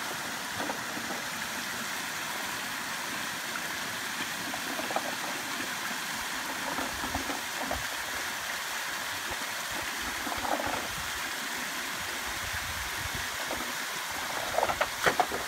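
Shallow creek water spilling over a low rock ledge in a small cascade: a steady rushing. Near the end, a few brief, louder sounds rise above it.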